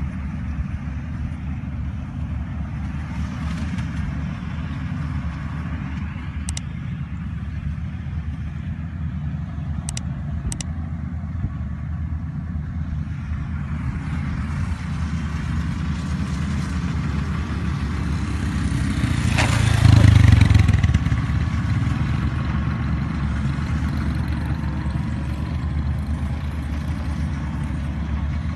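Engine of a Kubota rice threshing machine running steadily with a low drone, swelling louder for a couple of seconds about two-thirds of the way through.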